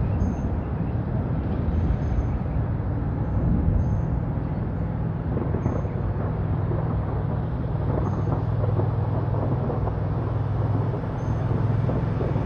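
Gusty wind buffeting the microphone: a rough, steady low rumble that wavers up and down in strength.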